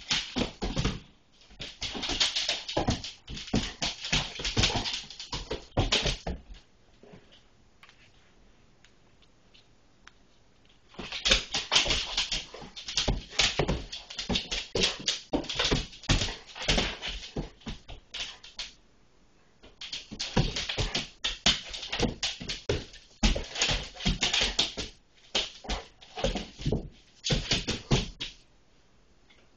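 A Weimaraner's claws clicking and scrabbling rapidly as it dashes after a laser dot. The clicking comes in three bouts, with a quiet pause of a few seconds after the first.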